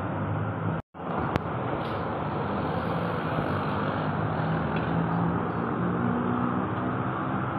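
Road traffic in the street below: a steady wash of engine and tyre noise from cars and motorcycles, with a low engine hum. The sound cuts out for a moment a little under a second in.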